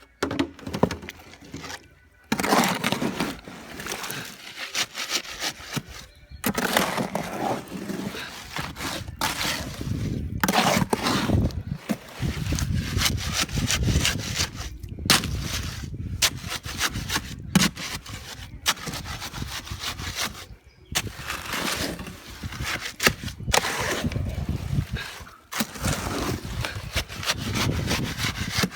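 Wet concrete being mixed by hand, a tool scraping and churning through the gritty mix in irregular strokes with short pauses, as water is worked in toward a flowable consistency.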